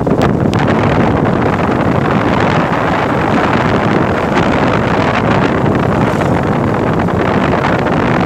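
Steady rush of wind buffeting the microphone of a moving bike, mixed with road and vehicle noise, with a few short knocks near the start.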